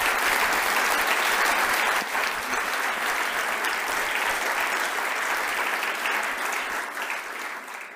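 Audience applauding steadily, a dense crackle of many hands clapping, fading out near the end.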